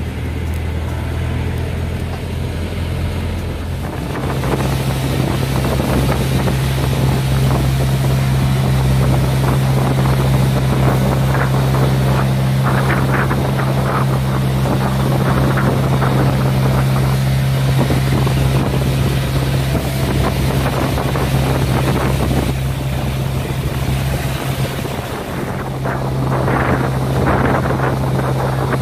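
Outrigger boat's engine running with a steady low drone that picks up speed about four seconds in, with gusts of wind on the microphone and water rushing past the hull.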